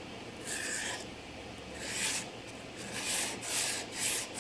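A steel pin rubbed back and forth along a 600-grit abrasive paper stick, a rasping hiss with each stroke, about five strokes coming quicker toward the end. The pivot steel is being ground down to fit a clock wheel.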